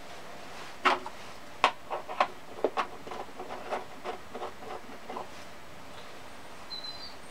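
Small steel threaded studs clicking and clinking as they are picked up and handled on a bench tray: a string of sharp ticks, with a few louder knocks in the first three seconds that then thin out. A faint bird chirp comes near the end.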